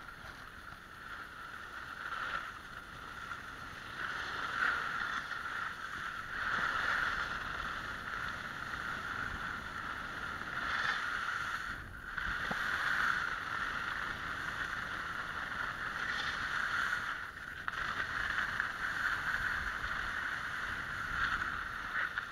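Snowboard sliding and carving over packed snow, a steady hissing scrape that swells and fades with the turns. It drops away briefly twice, about twelve and seventeen seconds in, as the board leaves the snow on the jumps.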